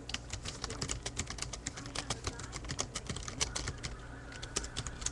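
Rapid, irregular keystrokes on a computer keyboard as a short chat message is typed, stopping near the end, over a steady low hum.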